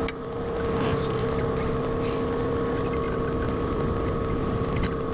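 Small outboard motor on an inflatable boat running steadily at trolling speed: an even hum with a steady tone, over a constant rush of water and wind.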